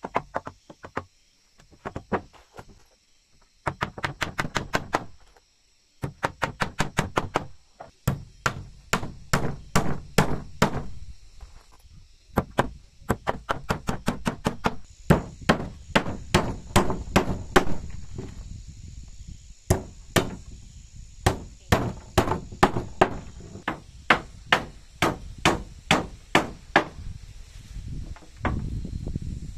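Hammer driving nails into wooden floorboards: sharp strikes in runs of several quick blows, about two to three a second, with short pauses between runs.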